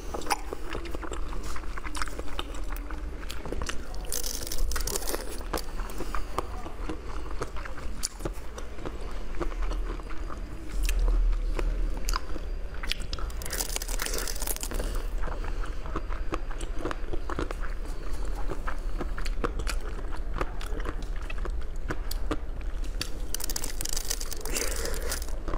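Close-miked biting and chewing of corn-cob-shaped jelly sweets: a dense run of small wet clicks and crackles, with a few louder bites.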